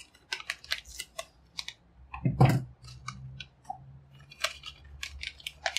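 Crinkling and clicking of a plastic chimichurri seasoning packet being handled and emptied over a bowl of flour and polenta: a run of light, irregular crackles, with one louder knock about halfway through.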